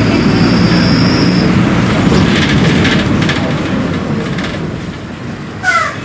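Volkswagen 17.230 OD city bus's diesel engine running while the bus is under way, a steady rumble that dies down over the last couple of seconds. A brief sharp noise comes near the end.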